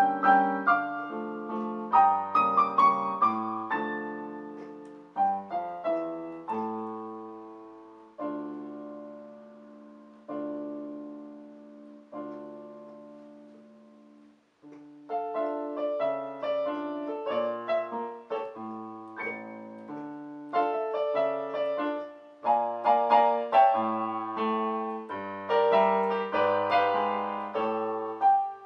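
Piano music of struck notes ringing out and fading. It thins to slow, sparse chords, breaks off briefly about fourteen seconds in, then picks up into a busier passage.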